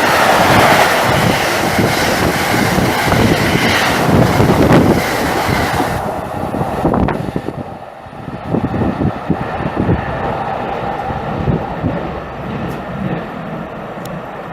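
Train passing at speed through a station, a loud rushing of wheels and wagons that falls away about six seconds in, leaving gusts of wind on the microphone.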